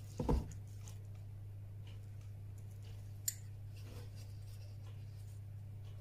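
Handling sounds of 0.7 mm stainless steel orthodontic wire being bent with pliers against a dental cast: a dull knock just after the start and a single sharp click about three seconds in, with faint ticks, over a steady low hum.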